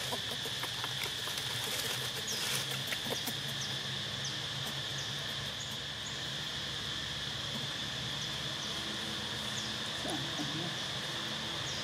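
Insects droning steadily in a high, even buzz, with faint short chirps now and then.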